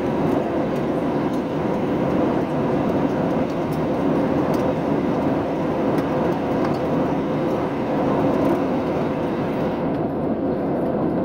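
Steady cabin noise of a passenger jet in flight: an even rush of engine and airflow heard from inside the cabin, with a faint steady hum under it.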